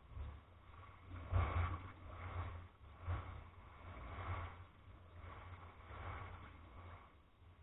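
Small waves washing up over a pebble shore, a rush of noise with each wave, the loudest about a second and a half in, over a steady low rumble.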